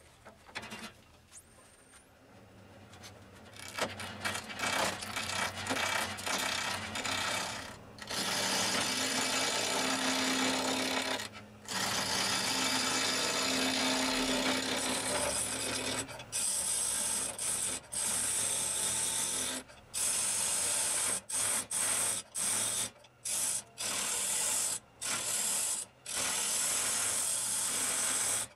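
A hand-held chisel cutting into a rough log blank spinning on a wood lathe, making a harsh scraping rasp. It starts a few seconds in and breaks off again and again as the tool is lifted and pressed back into the wood, with a faint steady hum from the lathe at times.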